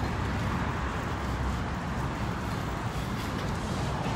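Steady outdoor background noise: a low rumble under an even hiss, with no distinct clicks, horns or voices standing out.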